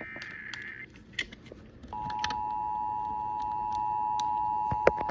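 The tail of an Emergency Alert System SAME header, a buzzing data burst, ends a little under a second in. About two seconds in, the steady EAS two-tone attention signal starts, with scattered clicks over it.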